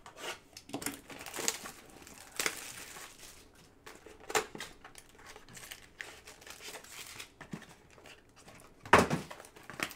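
Cellophane shrink-wrap crinkling and tearing and cardboard rustling as a 2024 Bowman Chrome trading-card box is unwrapped and its flaps opened: irregular sharp crackles, the loudest about nine seconds in.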